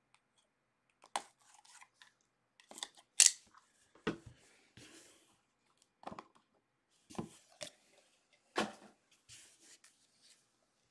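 A sealed cardboard trading-card box being cut open with a small blade and unpacked: a string of sharp snaps, crinkles and cardboard scrapes, the loudest about three seconds in.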